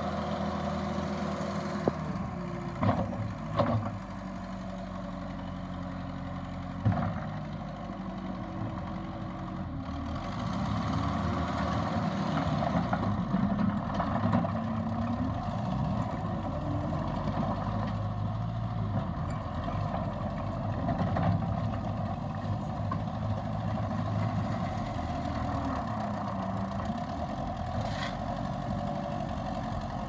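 New Holland C232 compact track loader's diesel engine running, its pitch rising and falling as the machine drives over gravel and works its bucket, louder from about a third of the way in. A few sharp clanks come in the first several seconds.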